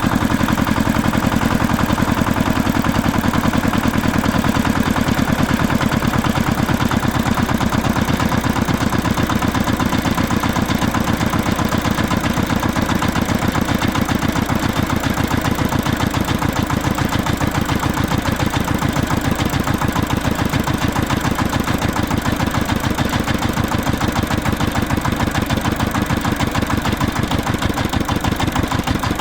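Diesel tractor engine running steadily, with a fast, even chugging beat and no change in speed.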